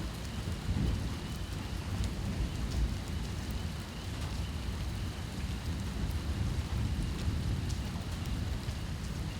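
Steady rain falling, with scattered single drops ticking and a deep low rumble underneath that swells slightly a few times.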